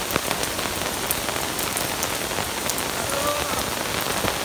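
Steady rain falling on hard surfaces: an even hiss with scattered drop ticks.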